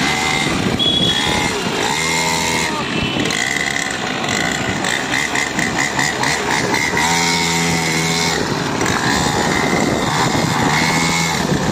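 Small 49cc petrol engine of a mini dirt bike running as it is ridden through street traffic. Steady horn blasts sound several times over the traffic, each about a second long.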